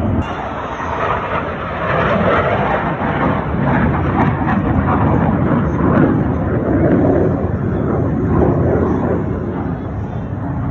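F-16 fighter jet engine noise: a loud, even rushing sound that swells about two seconds in and eases a little near the end.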